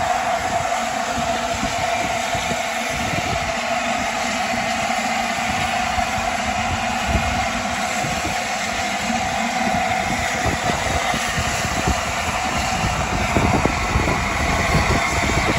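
LNER Class A4 Pacific steam locomotive running slowly into a station platform: a steady hiss with a constant mid-pitched hum over an uneven low rumble.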